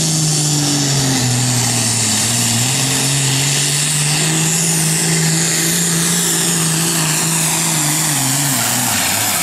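Diesel engine of a John Deere super farm pulling tractor at full throttle, dragging a weight-transfer sled down the track. The engine pitch sags under load until about two seconds in, climbs slowly as the tractor runs on, then falls away near the end.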